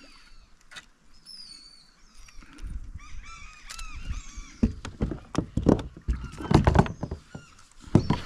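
Birds calling over and over with short curved calls, over a run of dull knocks and thumps that start about halfway through and grow louder toward the end.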